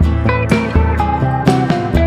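Background music: guitar-led track with a steady beat and bass line.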